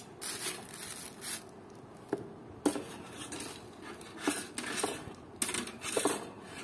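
Wire-mesh barbecue grill basket being handled, its metal wires clinking and rattling in a string of light, irregular clicks, with some rustling between them.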